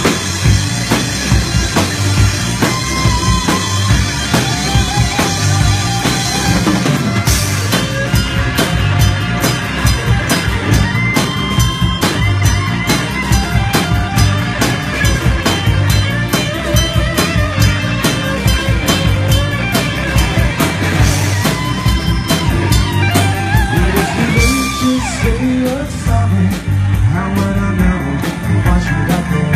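Live rock band playing an instrumental section: electric guitar playing lead lines with bent notes over drums and bass, a cymbal crash about seven seconds in.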